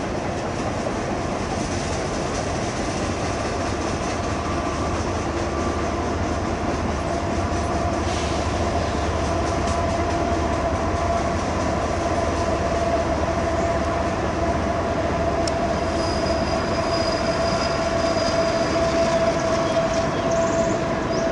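Freight train of boxcars rolling past: a steady rumble of steel wheels on rail, with a steady ringing tone that strengthens from about a third of the way in, getting slightly louder toward the end.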